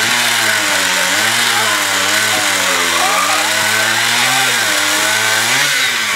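Historic two-stroke chainsaw running hard, its engine pitch sagging and recovering as it cuts through a log. The engine speeds up sharply near the end.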